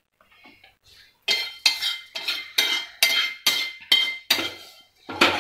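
A metal spoon clinking repeatedly against a metal pan, about three strikes a second, each with a short ringing note, then one louder clank near the end.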